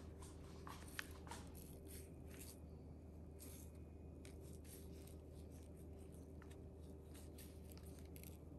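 Faint crinkling and rustling of a strawberry Jell-O powder packet being opened and shaken out, with a few soft ticks, one a little sharper about a second in. Otherwise near silence over a low steady hum.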